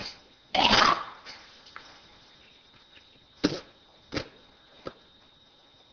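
An elderly man coughing once, loudly and close to the microphone, for about half a second. A few seconds later come three short, sharp sounds.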